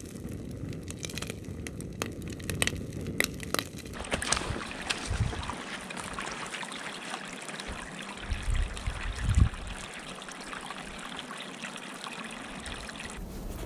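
Fire crackling with sharp pops for the first few seconds, then shallow muddy rainwater runoff streaming and trickling steadily across a forest path close by. A few low thumps come about five and nine seconds in.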